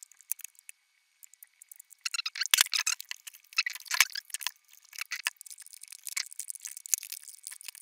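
Handling noise from a small CRT TV's plastic casing: a run of light clicks and rattles that starts about two seconds in, with one sharp knock about four seconds in.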